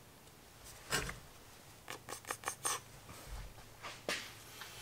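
Faint light taps and clicks of small items being handled on a metal-topped workbench, with a quick cluster of four or five clicks about two seconds in.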